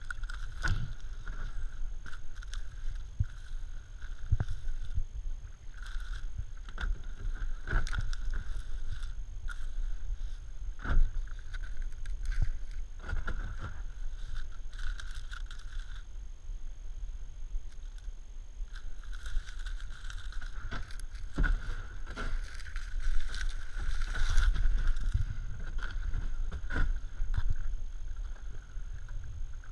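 Kayak paddle strokes on a small creek: irregular dips, splashes and drips of the blade in the water with the occasional knock, over a steady low rumble.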